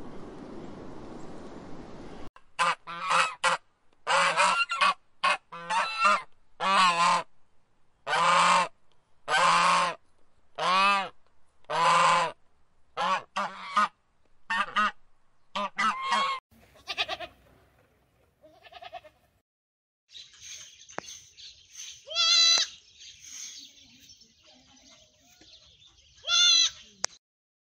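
Goose honking, a run of about fifteen honks. After a short lull comes a quieter stretch with a steady hiss and two louder calls.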